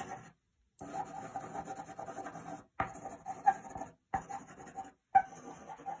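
Point of a colored pencil scribbling quick squiggles on paper: a dry scratching in about five stretches with short pauses between.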